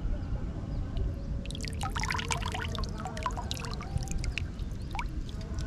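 Pond water trickling and dripping from cupped hands back into shallow water, with a quick flurry of small drips and plops around two seconds in and a few more later, over a steady low rumble.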